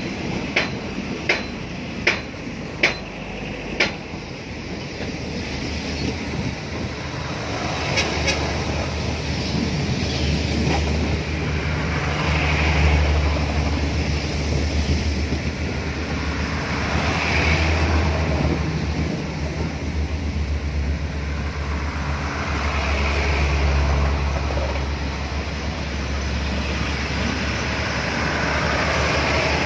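Passenger coaches of a departing Thai express train rolling slowly past. For the first four seconds the wheels give about six sharp clicks at intervals of under a second, typical of wheels crossing a rail joint. Then comes a steady rolling rumble with a low hum that swells and fades as the coaches go by.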